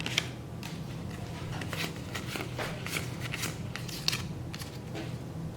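Pokémon trading cards being handled and slid against one another: a string of light, irregular clicks and rustles of card stock, over a low steady hum.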